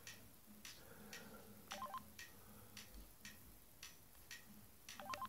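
Keys of a Trium MT-140 Astral mobile phone being pressed while scrolling its menus: a string of soft button clicks, about two a second, with short keypad beeps twice, a little under two seconds in and near the end.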